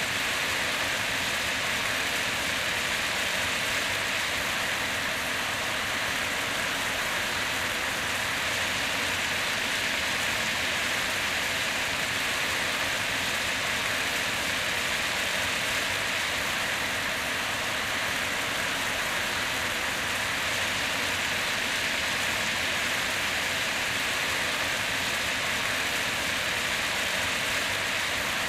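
Fish stir-frying in a pan: a steady sizzling hiss that sounds much like rain, even throughout without pauses.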